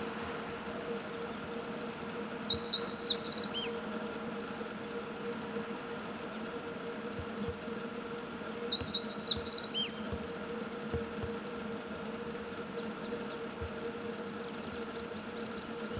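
Meadow bunting singing: two quick, twittering song phrases about seven seconds apart, with fainter notes between them, over a steady low background hum.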